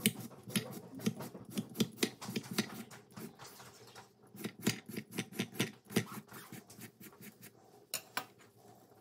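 Chef's knife making rapid thin cuts through a cucumber. Each stroke is a light tap of the blade against the bamboo cutting board and the chopsticks beside it, about four a second. The cutting pauses briefly about three seconds in, resumes, and stops about six seconds in, leaving only a few scattered taps.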